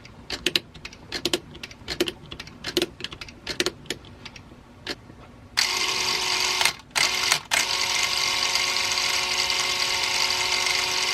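A series of irregular clicks, then the spring-wound clockwork mechanism of a Bell & Howell Filmo 70DL 16mm film camera runs with a steady whir, its freshly oiled gears turning. The whir cuts out briefly twice soon after it starts.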